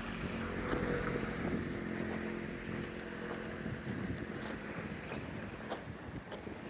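A motor vehicle's engine running steadily as a low hum, fading slowly near the end, with footsteps ticking over it.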